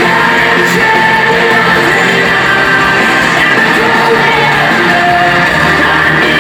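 Rock band playing live and loud through an arena PA, with a singer's vocal line over guitars and drums, heard from among the audience in a large hall.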